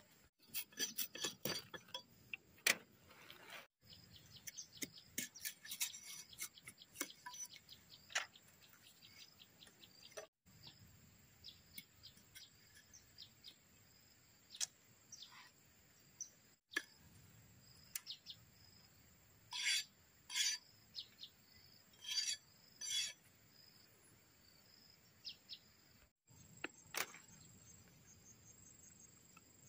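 Machete splitting and shaving green bamboo into thin strips: many sharp cracks and taps as the blade works down the cane and the strips split, with a few longer scraping strokes about two-thirds of the way through. Insects chirr steadily underneath.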